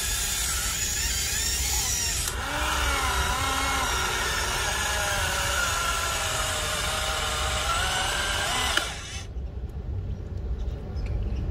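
Electric gear motors of a Huina 1593 RC excavator whining as the arm and bucket dig, the pitch wavering up and down with the load. About nine seconds in the sound turns duller and quieter.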